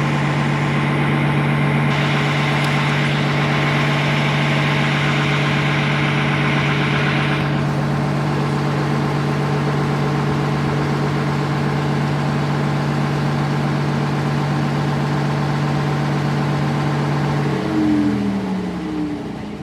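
Routemaster bus diesel engine running at a steady idle, with a hiss on top from about two to seven seconds in. Near the end the engine cuts out, its note falling away as it runs down and stops: the engine failing.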